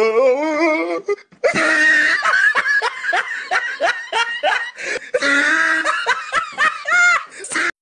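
Loud laughter in rapid repeated bursts, with a short break about a second in.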